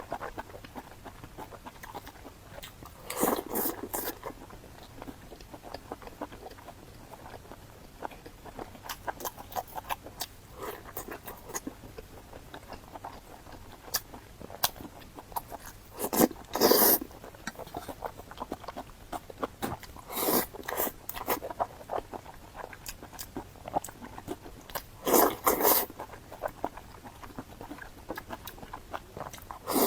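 Close-miked eating: chewing and crunching food, with small mouth and utensil clicks and several louder moments of crunching spread through.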